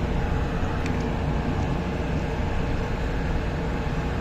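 Tren Ligero light rail train running along the track: a steady rumble with a steady hum.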